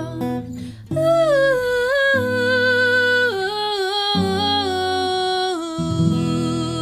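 A woman singing a wordless "ooh" melody with vibrato that steps down in pitch, over a strummed acoustic guitar.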